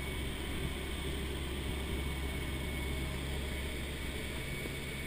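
Steady drone of a C-130 Hercules's four turboprop engines and propellers in flight, heard from inside the flight deck, with a thin steady high tone over the low rumble.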